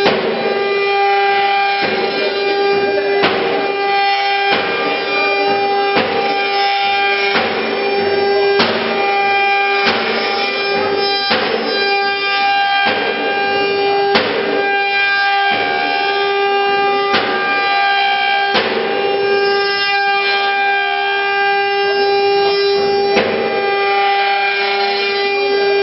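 Eight water-cooled CNC router spindles whining at a steady high pitch while they carve turning wooden blanks on a rotary engraving machine, with a rasping surge about every second and a half as the cutters bite.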